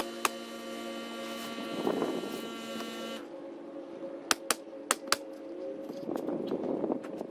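Ridgid coil roofing nailer firing nails into asphalt shingles: one sharp shot just after the start, then four quick shots about four to five seconds in. A steady mechanical hum with a whine runs underneath and cuts off about three seconds in.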